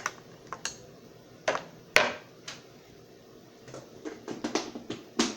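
Kitchen utensils knocking and clinking against a mixing bowl and measuring cup, a dozen or so sharp taps and knocks, the loudest about two seconds in and a quick run of them near the end.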